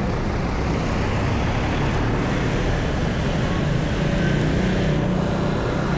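Steady road and traffic noise while riding through city streets, with a low engine hum that becomes clearer about two seconds in.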